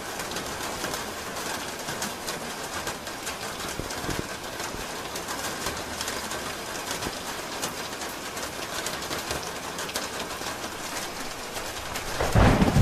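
Steady rain falling on a roof, a dense hiss with drops ticking. Near the end, a loud low rumble of thunder begins.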